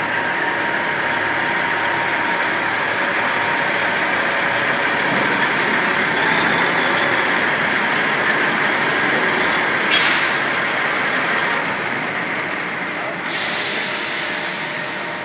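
Semi truck's diesel engine running as the tractor-trailer pulls slowly forward, with a short hiss of air about ten seconds in and a longer hiss near the end, like its air brakes releasing.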